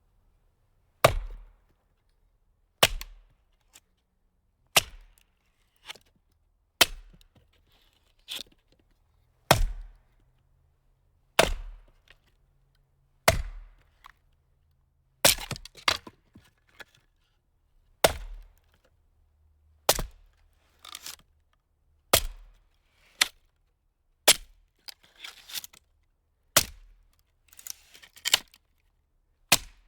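A series of sharp, hard impacts, about one every two seconds, each dying away quickly. Smaller hits and short bursts of clatter come between them in the later part.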